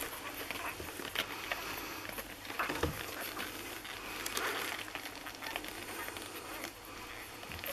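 Six-day-old Lagotto Romagnolo puppies suckling at their mother: a soft, uneven run of small wet clicks and smacks, with a few brief louder snuffles.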